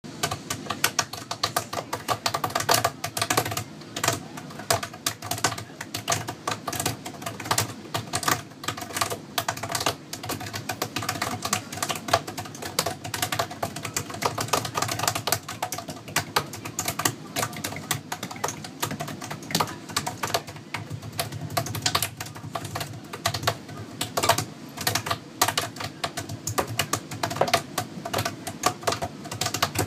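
Several pairs of hands drumming on a tabletop, tapping and slapping: a dense, fast patter of many small taps with louder strokes standing out now and then.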